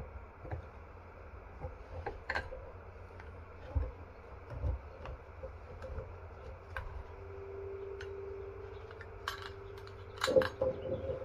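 Small metal clicks and clinks as the parts of an outboard ignition distributor are handled and worked apart by gloved hands, with a louder knock about ten seconds in.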